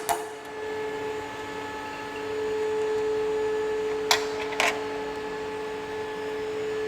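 Two sharp metallic clicks about half a second apart, from a spanner working the hydraulic pipe fitting on a two-post lift cylinder, over a steady hum.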